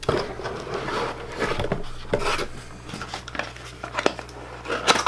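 Handling noise from unpacking small go-kart parts: rustling packaging with irregular light clicks and clinks of small parts, the sharpest click near the end.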